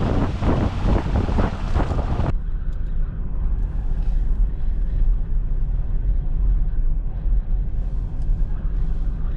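Wind buffeting the microphone, cut off abruptly about two seconds in, followed by the steady low rumble of a moving vehicle.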